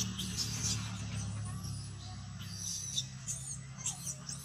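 Baby macaque giving short, high-pitched squealing cries, a cluster in the first second and several more toward the end, over a low steady hum.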